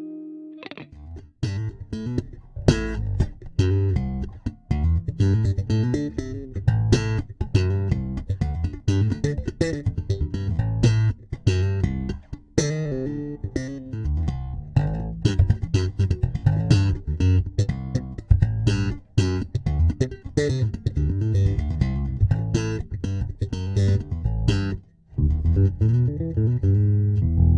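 Electric bass guitar played through a compressor pedal: a long run of short, sharply plucked notes with a strong low end, pausing briefly near the end.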